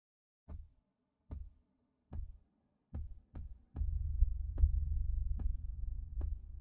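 Deep booming thuds, evenly spaced a little under a second apart like a slow heartbeat. About halfway through, a continuous low rumble swells in beneath them.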